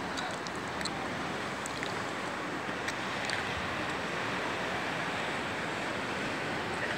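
Steady, even outdoor rushing noise, with a few faint light clicks in the first few seconds.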